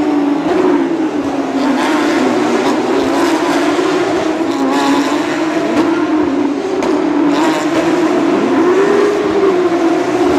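Several Porsche 911 GT3 Cup race cars with flat-six engines running at racing speed. Their overlapping engine notes keep rising and falling as the cars pass.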